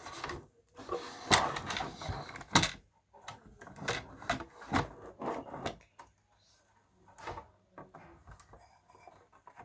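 A string of clicks, knocks and rattles from a vintage radio's case and parts being handled during disassembly. It is loudest and busiest in the first three seconds, then thins to scattered lighter clicks.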